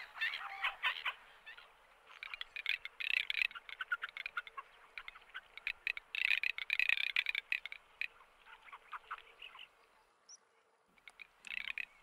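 Garganey drakes calling: repeated bursts of rapid, dry crackling calls, with a short pause about ten seconds in.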